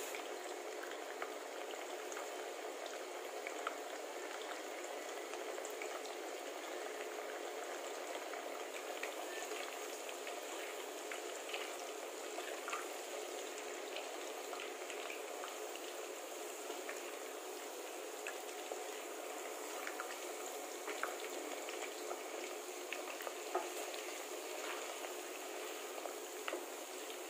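Thinly sliced potatoes deep-frying in hot oil in a stainless steel pot: a steady bubbling sizzle dotted with many small crackles and a few louder pops.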